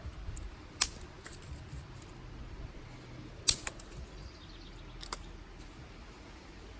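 Dry sticks snapping by hand: a sharp crack about a second in, another around three and a half seconds with a smaller crack right after it, and a third around five seconds.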